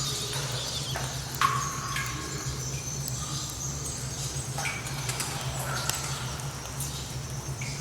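Cave ambience: water drops falling into pools at irregular intervals, each a sharp plink with a short ringing tone, the loudest about a second and a half in. Underneath run high squeaking from bats and insects and a steady low drone.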